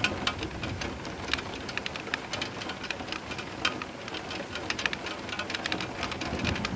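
Steady rain: an even hiss with many sharp, separate drop strikes.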